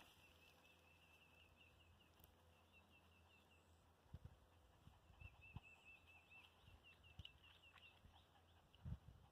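Near silence with faint, high bird chirps repeated several times a second, pausing about four seconds in. A few soft thuds come from a dog's paws landing as it leaps at the tree, the last and loudest near the end.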